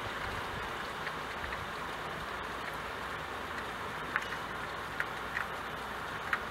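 Rain falling steadily on window glass: an even hiss, with a few sharper drop ticks in the second half.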